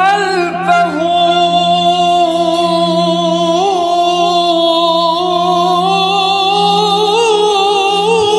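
A male voice singing a long, wavering melismatic line in an Arabic devotional song (madih), entering sharply at the start and held throughout over a steady low drone.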